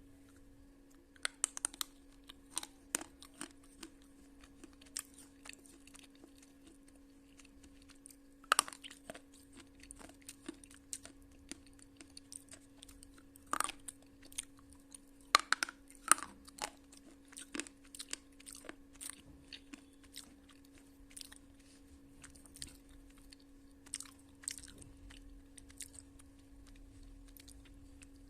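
Slate pencil being bitten and chewed: irregular sharp crunches and clicks, with a few louder snaps about a third and about halfway through. A steady low hum runs underneath.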